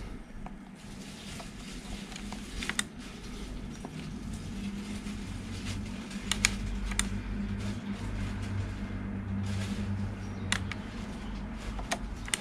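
A handful of sharp clicks, metal test-probe tips tapping against the breaker terminal screws in a consumer unit during an insulation test, over a steady low hum.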